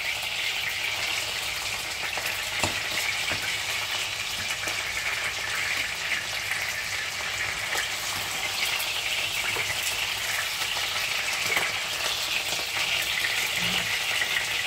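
A whole red sea bream sizzling steadily as it fries in oil in a nonstick frying pan. A fork and a wooden spatula turning the fish give a few light clicks against the pan.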